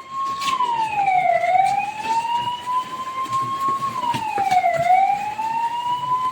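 Siren wailing in a repeating cycle. Its pitch drops quickly, then climbs slowly back up, about every three and a half seconds.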